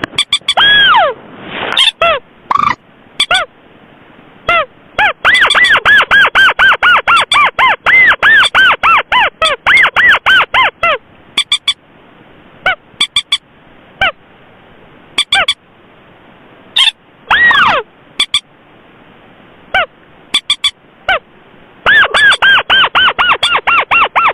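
Recorded rail call played as a lure for common moorhens and crakes: sharp arched notes in fast runs of about three to four a second, broken by pauses with single notes between.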